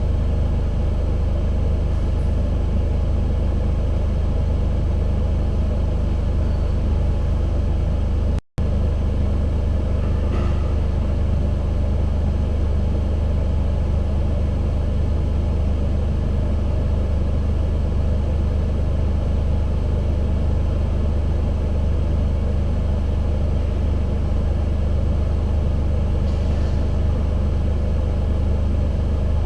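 Car engine idling steadily, a constant low hum, with the sound cutting out for an instant about a third of the way through.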